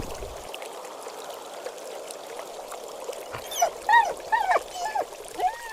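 Steady rush of running water. About halfway through, a rapid string of short, high animal calls begins, each one rising and falling in pitch.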